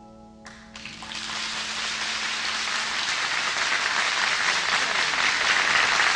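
Studio audience applauding: the clapping breaks out about half a second in and grows steadily louder, over the last faint note of the song dying away.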